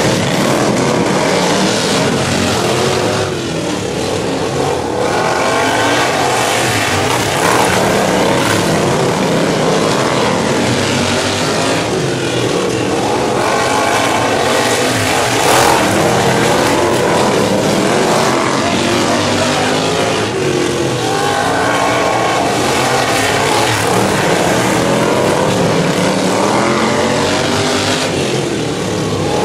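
Engines of several racing riding lawn mowers running hard as they lap the track. The mix is loud throughout, and the pitch repeatedly rises and falls as the mowers accelerate and pass by.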